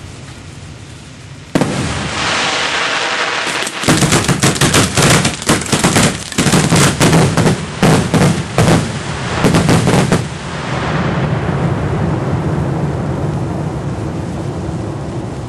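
Fireworks firing at close range from ground racks: a sudden hissing rush about a second and a half in, then a rapid string of sharp bangs for about six seconds, then a fading rumble and hiss.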